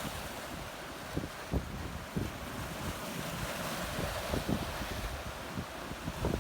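Strong wind gusting over the microphone, with uneven low buffeting thumps over a steady rushing hiss.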